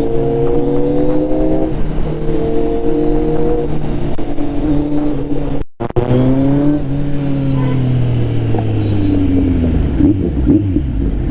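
Kawasaki Z900 inline-four engine running under way, with a step down in pitch about two seconds in, like a gear change. The sound cuts out for a moment halfway, then the revs fall steadily as the bike slows and the note turns rough and uneven near the end.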